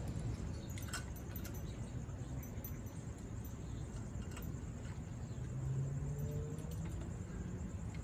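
Scattered small sharp clicks and taps of Amazon parrots' beaks working food in a coconut-shell bowl and gripping the wooden perch, over a steady low hum of distant traffic and a faint steady high tone.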